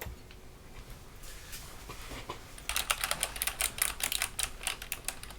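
Typing on a Hexgears Supernova mechanical keyboard fitted with clicky Kailh BOX Jade switches: after some faint sounds, a fast run of sharp key clicks starts about three seconds in.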